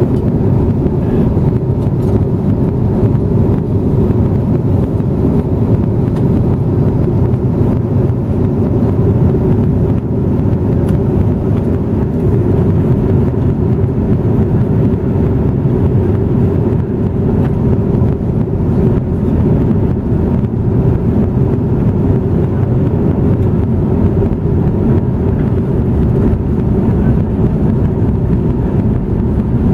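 Steady cabin noise of a jet airliner in flight: a deep, even rush of airflow and engines heard from inside the cabin, unchanging throughout.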